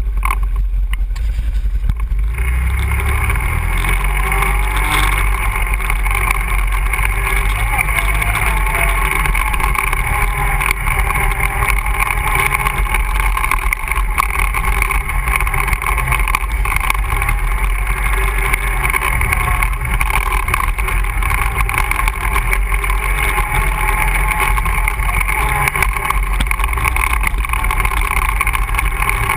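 ATV engine running steadily as the machine is ridden, its revs wavering a few seconds in.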